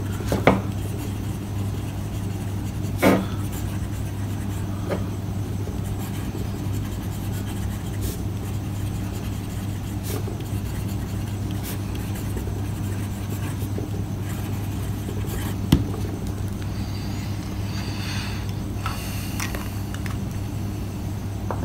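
Broad-nib fountain pen faintly scratching across paper while writing, over a steady low hum of background noise. A few light taps or clicks stand out, the clearest about three seconds in.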